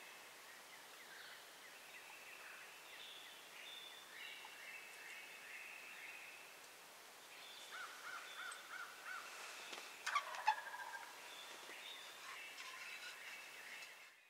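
Songbirds chirping faintly throughout. About ten seconds in, a wild turkey gobbler gobbles once: a brief rattling call, the loudest sound here, just after a short run of evenly spaced notes.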